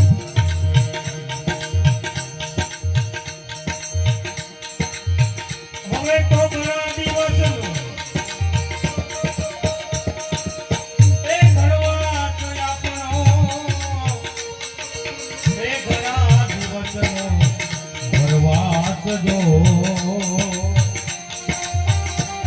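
Live bhajan music: hand-drum beats in a steady rhythm with rattling percussion and sustained held tones, and a singing voice coming in about six seconds in.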